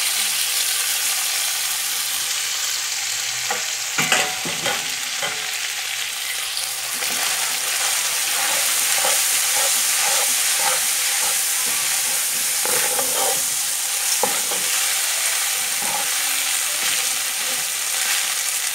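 Spaghetti sizzling in hot olive oil with fried garlic and bacon in a large pan, stirred and tossed with a spatula that scrapes and knocks against the pan now and then, the loudest knock about four seconds in.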